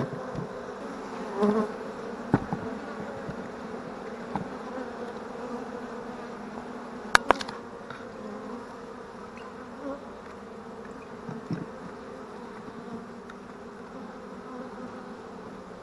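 A swarm of honey bees buzzing steadily around the open hive. About seven seconds in come two sharp knocks, with a few lighter clicks elsewhere, as the glass feeder jars are set down on the wooden sticks of the inner cover.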